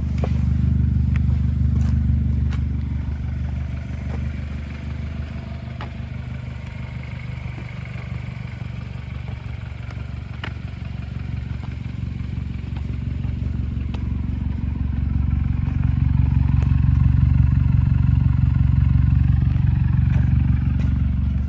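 BMW F30 328i's turbocharged four-cylinder engine running with a steady low drone, which grows louder about two-thirds of the way through.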